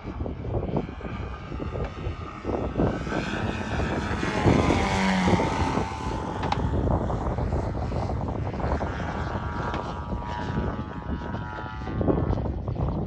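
Large-scale RC aerobatic plane's GP123 petrol engine with tuned exhausts running in flight, its note dropping sharply in pitch about four seconds in, then holding a steady higher note later on. Gusts of wind rumble on the microphone throughout.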